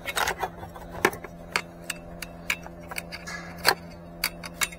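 Irregular sharp clicks and taps of a screwdriver and a car's blower motor knocking against the plastic blower housing while the new blower motor is being worked into place, with the loudest knock near the end.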